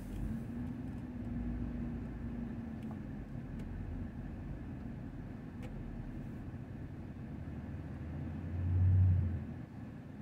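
Low, steady rumble of vehicle engines in slow traffic, heard from a following car, with a louder low engine drone swelling and fading about nine seconds in.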